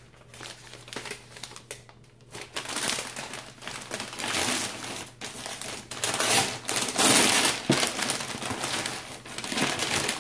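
Paper packaging crinkling and rustling in uneven bursts as clothes are unpacked from a box, loudest a little past the middle.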